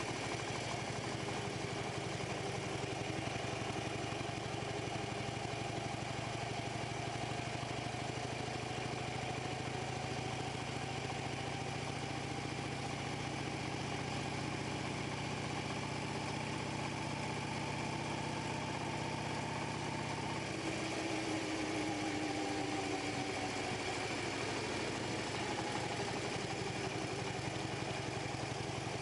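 Motorcycle engine running steadily while riding along a road; the engine note drops and changes about two-thirds of the way through.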